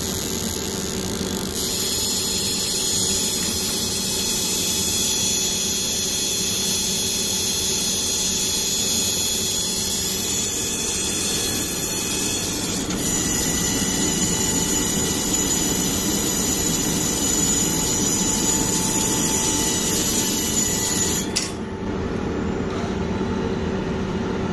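Schwind Amaris excimer laser firing during a no-touch PRK ablation of the cornea: a steady buzzing with high whining tones, which shifts slightly twice and cuts off abruptly about three seconds before the end, leaving a fainter machine hum.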